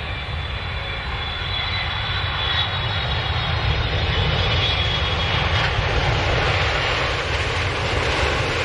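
Airplane engines running as the plane lands, a dense noise with a deep rumble that grows louder over the first few seconds and then holds steady. A thin high whine fades out early on.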